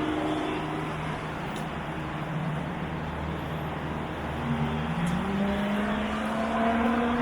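A motor vehicle's engine running over steady road noise, rising in pitch in the second half as it accelerates.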